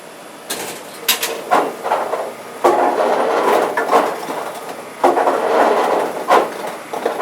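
Golf ball dispenser running after a token is dropped in: a few sharp clicks, then its mechanism clacking and golf balls rattling out in two runs of a couple of seconds each.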